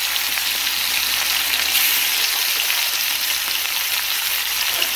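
Hilsa steaks shallow-frying in hot oil in a kadai: a steady sizzle with fine crackle.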